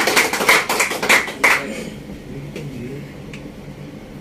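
A small group clapping their hands, stopping about a second and a half in; faint voices murmur after.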